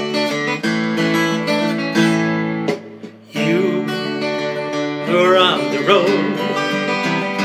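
Acoustic guitar strummed in chords, with a brief break about three seconds in before the strumming resumes. A wavering melody line joins over the chords from about five seconds in.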